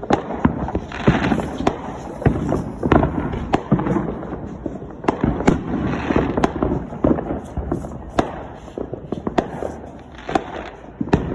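Fireworks going off: an irregular run of sharp bangs and cracks, several a second, with bursts of crackle among them.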